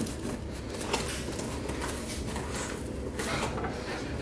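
Cardboard shipping box being cut open with a knife and handled: scraping and rustling with a few light knocks.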